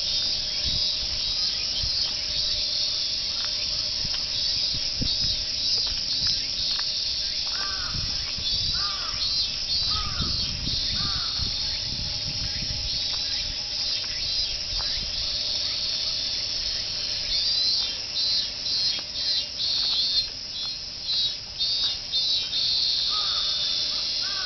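A chorus of robust cicadas (minminzemi) singing their repeated "meen-meen" calls, high-pitched and continuous, swelling into stronger pulses in the second half. A bird calls a few short notes about a third of the way in and again near the end.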